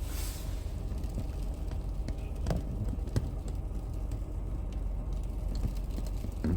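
Steady low rumble of an idling vehicle engine, with a few light knocks about two and a half, three and six and a half seconds in.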